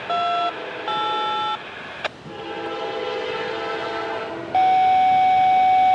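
Train air horn sounding a short blast, a slightly longer one, and then a long held blast near the end, over the steady noise of the passing train. A single sharp click comes about two seconds in.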